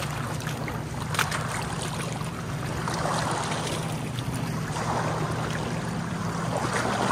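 Lake water splashing and sloshing in uneven swells as a flat stone slab is rinsed by hand in the shallows, over a steady low hum.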